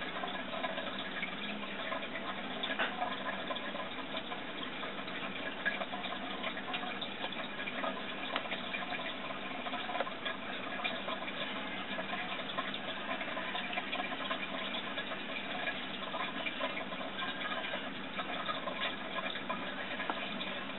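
Steady rushing water noise with scattered small clicks, as from water moving in an aquarium.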